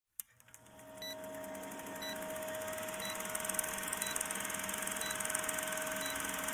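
Steady electronic tones fading in, with a short high beep about once a second.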